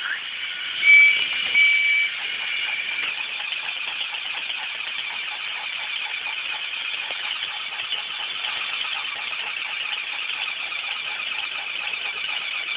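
Motorised toy train engines running on track: a steady high whirring rattle of small electric motors and gears. Two short high squeaks come about a second in.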